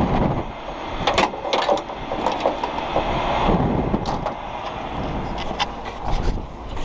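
Heavy-duty tow truck running, with scattered sharp knocks and clanks over it.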